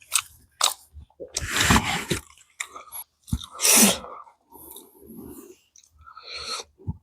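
Close-miked chewing of a mouthful of aloo tikki: wet, irregular mouth and chewing noises with a couple of louder crunchy bites.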